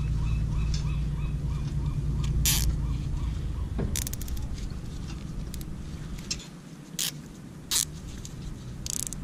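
Zip ties being pulled tight around chicken drumsticks on a wire crab pot: short ratcheting zips and clicks, with a quick run of ratchet clicks about four seconds in and again near the end. A low steady rumble runs underneath and stops about six and a half seconds in.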